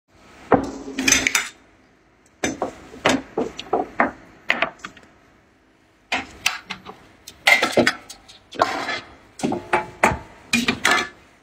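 Clattering knocks and clinks of hard objects being handled, coming in three bursts separated by short pauses.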